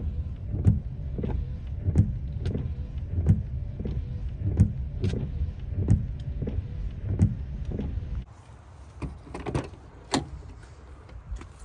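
Inside a Subaru driving in rain: a steady low rumble with a sharp click repeating about every two-thirds of a second. About eight seconds in the rumble cuts off, leaving a quieter stretch with scattered taps and clicks.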